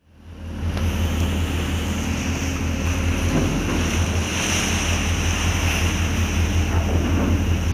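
Wind buffeting an outdoor microphone over the rush of the open sea, with a steady low rumble underneath; it fades in over the first half second.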